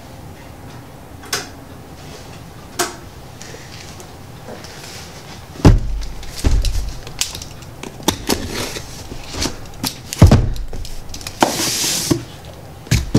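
Cardboard shipping box being handled and opened on a table: two faint clicks, then heavy thumps about halfway through and again later, with cardboard and packing paper rustling between them and a hissy sheet of paper sliding out near the end.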